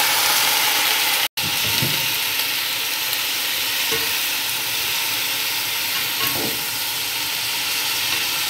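Raw chicken pieces frying in hot oil with onions in a large aluminium pot, stirred with a slotted metal spoon: a steady sizzling hiss that drops out for an instant about a second in.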